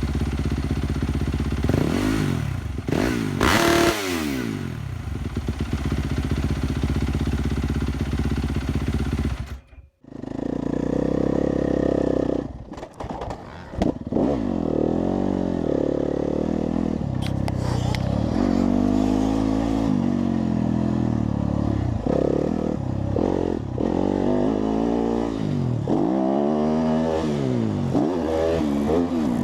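Motorcycle engine idling through its exhaust, then blipped in a few quick revs. After a brief cut-out near the middle, it is revved repeatedly, each rev rising and falling, about every two to three seconds.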